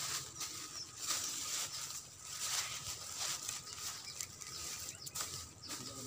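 Leaves and grass stalks rustling and crackling in irregular bursts as dense vegetation is handled and pushed aside.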